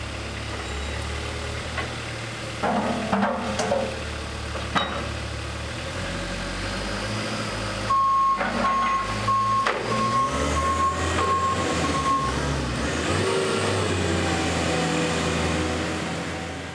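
Combilift Combi-CB forklift running with a steady low hum, with a few metal clanks from the spreader bar attachment about three to five seconds in. A steady high warning beep sounds from about eight to twelve seconds in, and then the pitch of the truck's motor and hydraulics rises and falls as it moves off.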